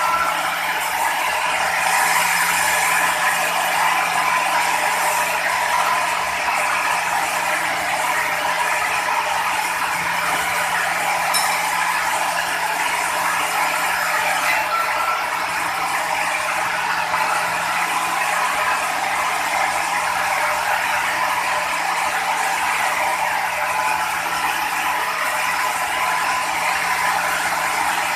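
Sawmill machinery running steadily: a dense, continuous mechanical rattle with a steady hum beneath it.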